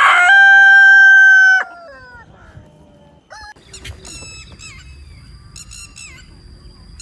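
Rooster crowing, its long final note held steady and breaking off about a second and a half in. Fainter quick chirps of small birds follow.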